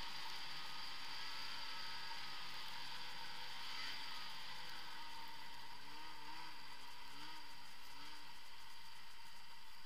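A 2016 Arctic Cat ZR 6000 El Tigre snowmobile's 600 cc two-stroke twin running at a steady cruising pace. Its pitch dips and rises slightly a few times in the second half as the throttle is worked.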